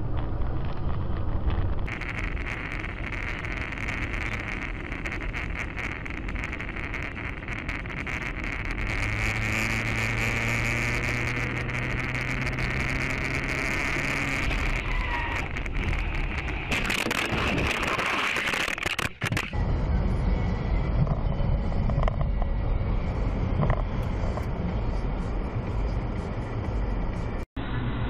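Engine and road noise of cars in motion, heard from inside the vehicle as a dashcam picks it up. The noise changes abruptly a few times, and a louder hiss swells about two-thirds of the way through.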